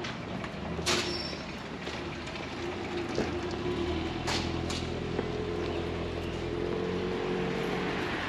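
A large vehicle's engine running steadily, with a low hum whose pitch rises slightly in the second half, and a few sharp clicks about a second in and again near the middle.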